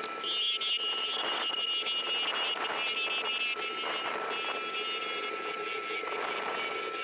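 Laguna Revo 18|36 wood lathe running with a steady whining tone, while a turning tool cuts the spinning green oak blank and adds a rough scraping hiss.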